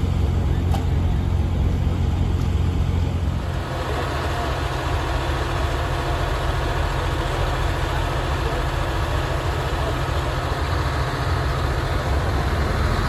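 Diesel locomotives idling with a steady low rumble. About four seconds in, the sound changes abruptly to a broader, rushing rumble that holds.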